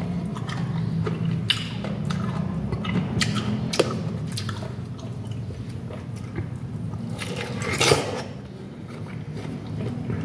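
A person biting and chewing juicy fresh pineapple close to the microphone: wet chewing with many small clicks, and one louder, longer burst about eight seconds in.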